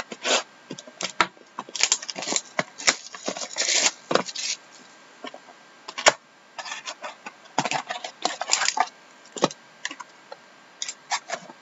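Cellophane shrink wrap being torn and peeled off a trading card box, crackling in dense bursts. Light knocks come from the cardboard box being handled.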